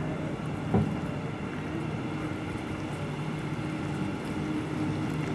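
Steady rumble of city rail and road traffic with a low engine hum under it, as a double-deck regional train runs along the viaduct; a single short thump about a second in.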